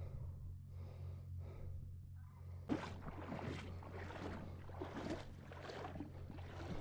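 Faint breathing of a person close to the microphone, quick and noisy, over a low steady hum.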